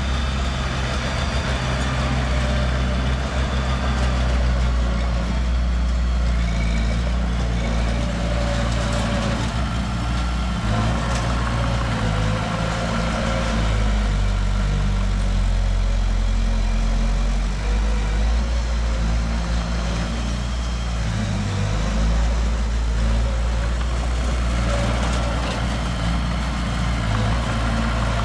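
Heavy diesel engine of earthmoving machinery running steadily, its low note shifting every few seconds as the machine works.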